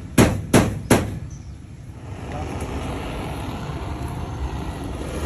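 Three sharp knocks in the first second, then, from about two seconds in, a handheld butane blowtorch burning with a steady rushing hiss that slowly grows louder.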